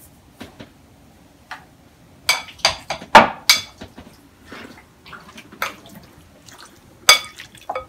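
A spoon clinking and knocking against a glass bowl while raw liver pieces are mixed with seasoning, with soft wet sounds from the liver between the clinks. The clinks are sharp and ring briefly: four loud ones come close together about two to four seconds in, and another comes near the end.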